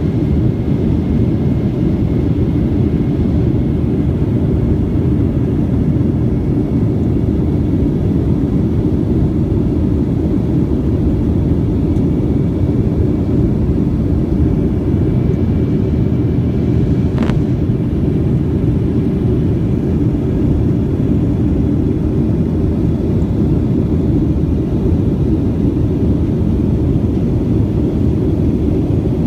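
Steady roar of a jet airliner in flight after takeoff, heard from inside the passenger cabin, with one short click about halfway through.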